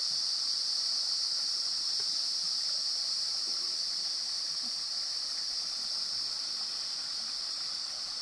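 Shallow stream rippling over stones under a steady, high-pitched drone of rainforest insects, the insects the louder of the two.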